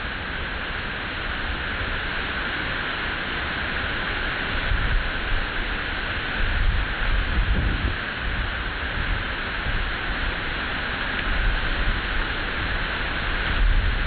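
Wind gusting on the microphone, rumbling in irregular surges over a steady outdoor hiss.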